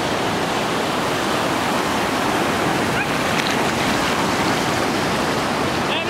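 Surf washing onto a sandy beach: a steady rushing hiss of breaking waves and the shallow wash running up the sand.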